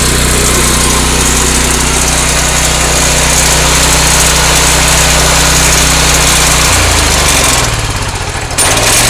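Honda GX390 single-cylinder gasoline engine on an EDCO walk-behind concrete saw running steadily at speed. About seven seconds in it slows and drops in pitch, then picks back up abruptly near the end.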